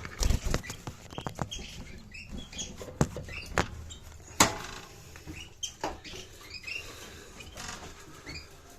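Canaries in a breeding cage giving short, high cheeps and chirps, over a scatter of sharp clicks and knocks, the loudest about four and a half seconds in.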